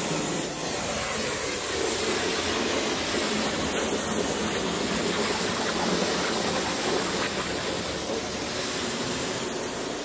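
Truck-mounted carpet-cleaning vacuum drawing air through a crevice tool run along the carpet edge: a steady rushing hiss of suction.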